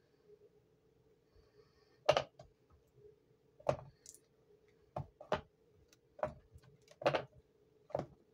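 Cured epoxy resin coasters clacking as they are handled and set down on a hard work surface: about seven sharp clicks and knocks at uneven intervals, over a faint steady hum.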